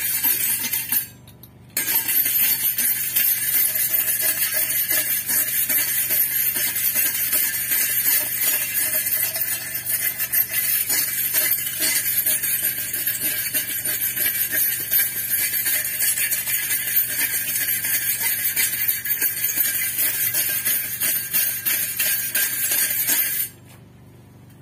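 Hand wire brush scrubbing rust off a steel bar in rapid back-and-forth strokes, a harsh metallic scratching. It breaks off briefly about a second in and stops near the end. This is rust removal, preparing the steel surface for painting.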